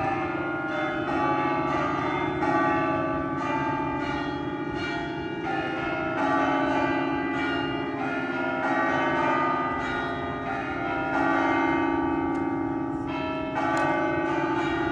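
Cathedral Basilica of the Sacred Heart's church bells pealing, strike after strike about twice a second, the tones overlapping over a lingering low hum. The bells are rung in celebration of a new pope's election.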